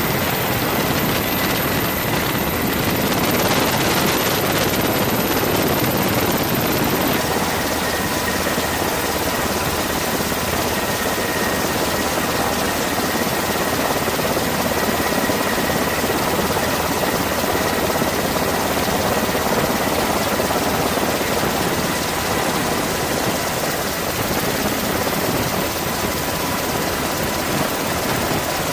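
Steady aircraft engine noise, a dense continuous rush with a faint high whine held throughout.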